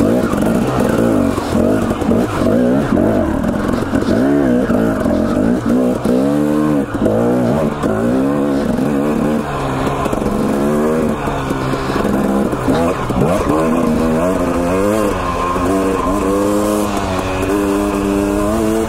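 Husqvarna TE 250 two-stroke dirt bike engine under load, its pitch rising and falling over and over as the throttle is opened and closed.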